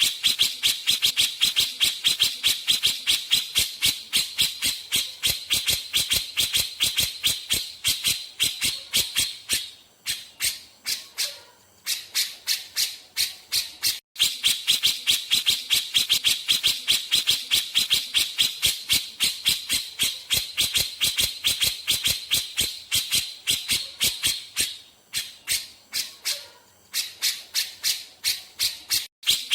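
Cucak jenggot (grey-cheeked bulbul) singing gacor in rapid-fire, a fast run of short sharp high notes at about four or five a second, said to carry white-rumped shama phrases. The song breaks off briefly twice, and the same run repeats about halfway through, as in a looped recording.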